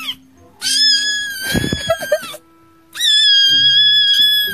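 Two long, high, drawn-out cat wails from a meme sound clip, each held at a steady pitch for over a second, with low background music notes underneath.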